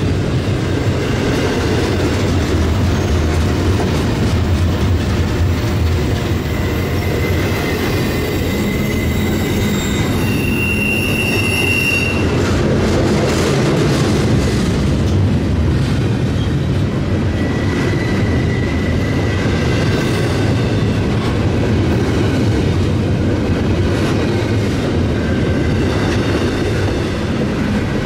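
Freight train of intermodal cars rolling past steadily on the rails. A high wheel squeal rings for about a second and a half some ten seconds in, and a fainter squeal comes around eighteen seconds.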